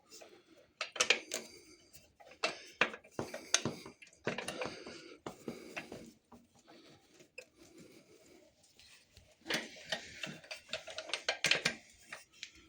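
Irregular metal clicks, taps and clatter of hand tools and rear brake caliper parts being handled and fitted, in two bursts with a quieter stretch in the middle.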